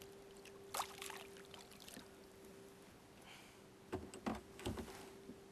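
Faint water lapping and trickling around a kayak at sea, with a few light clicks and, near the end, a short run of low knocks. A faint steady hum lies underneath and drops out briefly past the middle.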